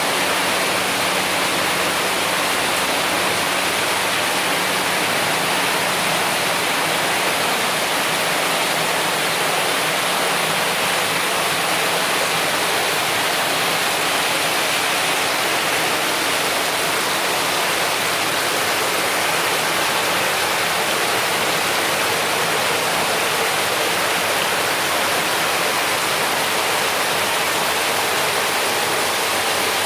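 Water pouring steadily over an artificial-rock waterfall, a continuous even rush of falling and splashing water.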